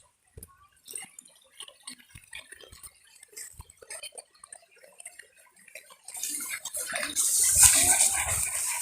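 River water trickling and dripping in scattered small splashes, then a louder rush of splashing water from about six seconds in.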